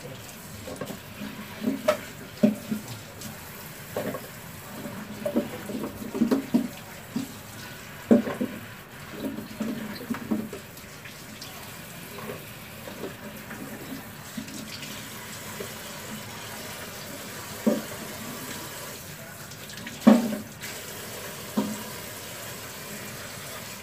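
Kitchen tap running into the sink while vegetables are rinsed in a plastic bowl, with irregular knocks and clatters of the bowl and vegetables, the loudest about eight seconds in and again near the end.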